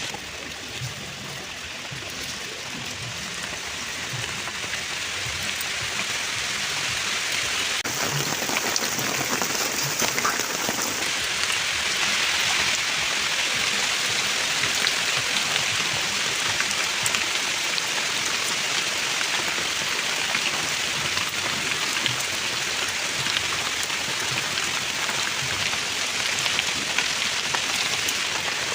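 Food frying in hot oil: a steady sizzle with fine crackling, growing louder over the first ten seconds or so and then holding even.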